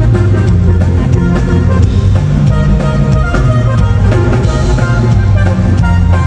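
Loud live band music with a drum kit and sustained bass notes, no vocals heard in the transcript.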